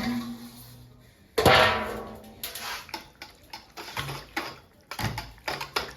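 A loud ringing clatter about a second and a half in as the cover comes off the bowl of soda-soap batter, followed by a run of clicks and scrapes from a utensil working the thick batter in the bowl.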